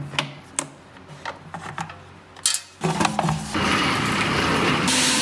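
Screwdriver clicking and scraping as screws are backed out of a thicknesser's metal top cover. From about three seconds in, a loud steady hiss takes over.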